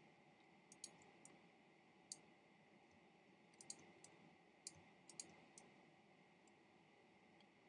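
Faint computer mouse clicks, about a dozen short sharp clicks scattered irregularly, some in quick pairs, over near-silent room tone.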